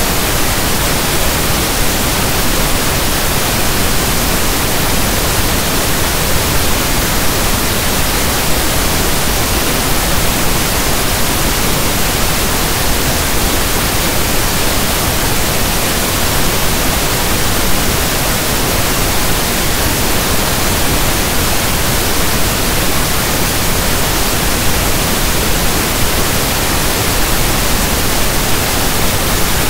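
Steady synthetic pink noise: soft static like a radio station not in tune, an even hiss with no tones, changes or breaks.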